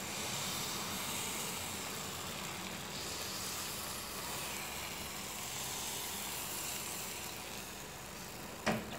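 Palappam rice batter sizzling in a hot non-stick appam pan as the pan is tilted to spread it, a steady soft hiss. A short knock comes near the end.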